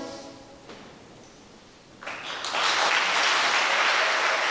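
A children's choir's final held chord cuts off and dies away. After about two seconds of hush, the audience breaks into applause that swells quickly and holds loud.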